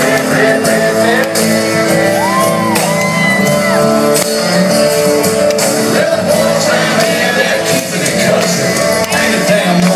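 Live country band with a singer, played loud over a concert PA and heard from the stands, with the crowd shouting and whooping along.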